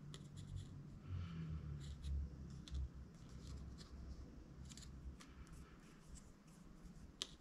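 Faint, scattered clicks and light scratchy rubbing of small parts being handled and fitted by hand, with a few sharper ticks.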